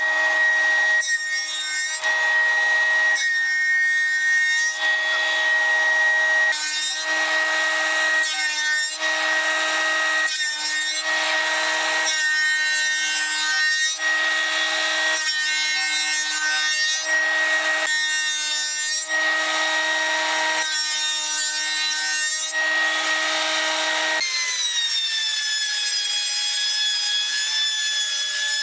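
Spindle moulder (shaper) with a roller power feeder cutting a profile along a wooden board: a steady motor whine under a rasping cut that swells and fades every second or two. About 24 seconds in the feeder stops and the cutter's whine slowly drops in pitch as it runs on.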